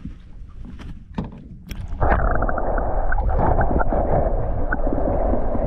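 A few light knocks near the water's surface, then about two seconds in the phone's microphone goes under water: a sudden, loud, muffled rush of water with bubbling and crackle.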